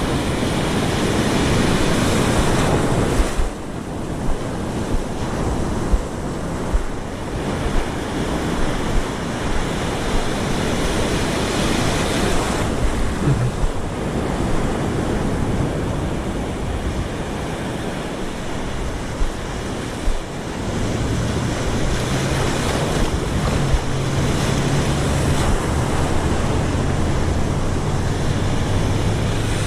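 Ocean surf breaking and washing up the beach, with wind buffeting the microphone in gusts. A low steady drone joins about two-thirds of the way through.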